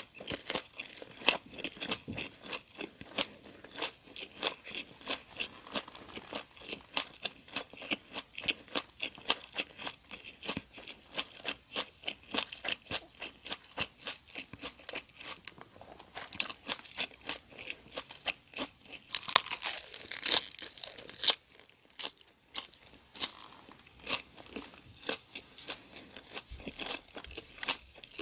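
Close-miked chewing of chewy, gelatinous jokbal (braised pig's trotter), a quick run of short, wet clicks several times a second. About 19 seconds in, a louder, hissier stretch lasts two seconds or so.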